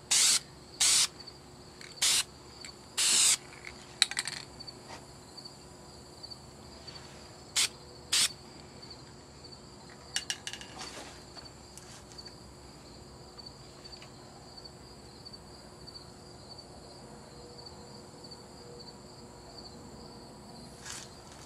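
Short hisses from an aerosol spray paint can, four in the first three and a half seconds, the last a little longer, and two more about eight seconds in. Crickets chirp steadily underneath.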